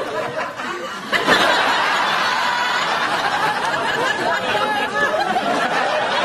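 Studio audience laughing: a low ripple of laughter swells about a second in into loud, sustained laughter from many people.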